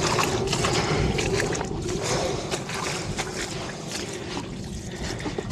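Wind buffeting the microphone, with irregular splashing steps of someone wading through shallow water.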